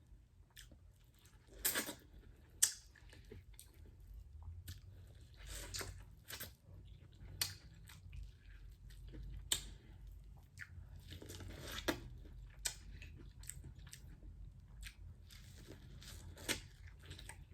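A person chewing and eating seafood-boil food at close range, with scattered sharp crunches, clicks and short tearing sounds.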